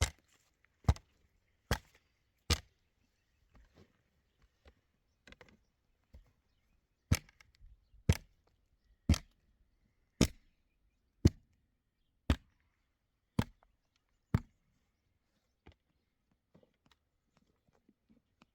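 Sharp chopping strikes, about one a second: four, a pause of several seconds, then eight more, with faint taps in between.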